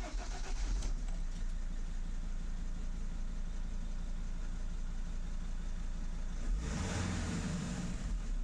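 A 2004 Mercedes Sprinter 616 CDI's 2.7-litre five-cylinder turbo diesel starts, catching right away and settling into a steady idle. It is revved briefly to about 2000 rpm near the end, then drops back.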